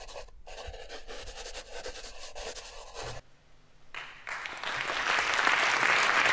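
Graphite pencil scratching across paper in quick shading strokes. It stops about three seconds in, and after a short gap applause swells up and grows loud.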